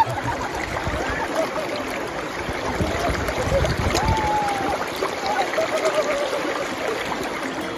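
River current rushing and splashing over a shallow riffle, heard from a camera held right at the waterline so the water laps close against it. A steady, even rush with no breaks.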